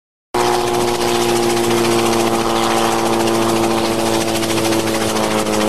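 Helicopter running steadily, a steady engine whine with several even tones over a rushing noise, cutting in suddenly from silence.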